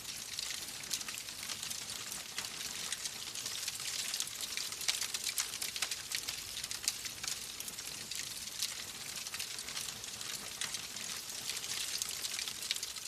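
Wood fire in a fireplace crackling: a steady hiss with many small, irregular pops and snaps.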